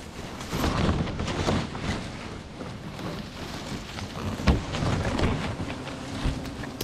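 Tree branches and leaves rustling and shaking in irregular bursts as someone moves about in the tree, with sharp knocks about four and a half and six seconds in.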